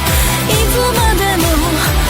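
Background music: an upbeat pop-style track with a gliding melody line over a steady drum beat.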